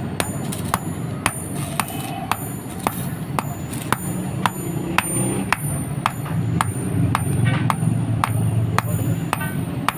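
Hand hammer striking steel on an anvil in a steady forging rhythm, about two blows a second, over a steady low hum.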